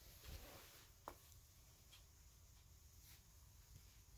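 Near silence: faint room tone, with one brief faint high tone about a second in.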